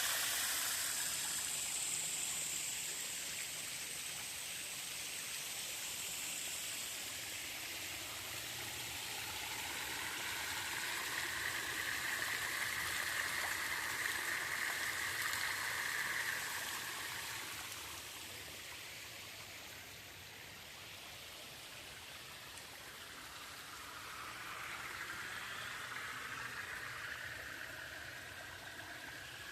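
Thermal spring water running and trickling over travertine terraces, a steady rushing that swells in the middle and eases later.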